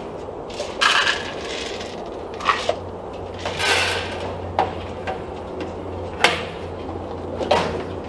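Scattered clicks, knocks and rattles of small plastic containers being handled against wire rabbit cages, with a short rattling pour about three and a half seconds in as a container is tipped into a cage. A low steady hum runs underneath.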